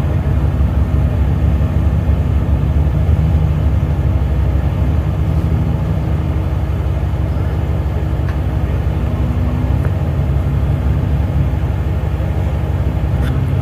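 Jeep Wrangler's engine running at low revs under load as it crawls up a rock ledge, a steady low engine note.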